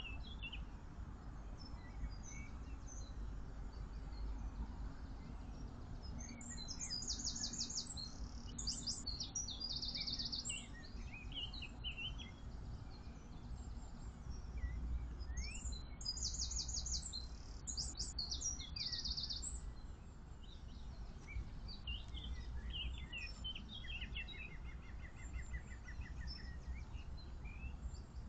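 Songbirds singing, with phrases of rapid trilled notes repeated every few seconds and scattered short calls, over a low steady rumble.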